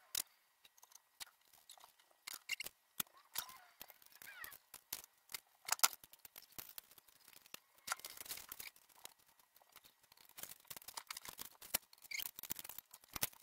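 Scattered light clicks and metallic clinks from hand work on a Toyota 1NZ-FE engine as the valve cover is set onto the cylinder head and its bolts and tool are handled.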